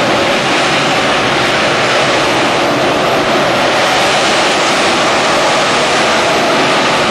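AV-8 Harrier's Rolls-Royce Pegasus turbofan hovering, a loud, steady jet rush with no change in pitch.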